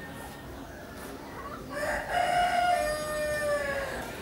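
A rooster crowing once: one long call starting about halfway through, dropping slightly in pitch at the end.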